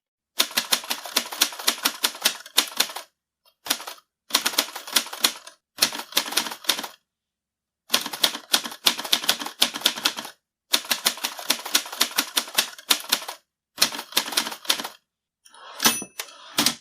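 Mechanical typewriter being typed on in quick runs of keystrokes, with short pauses between the runs. Near the end comes a short bell-like ring and a heavier clunk, typical of the margin bell and the carriage return.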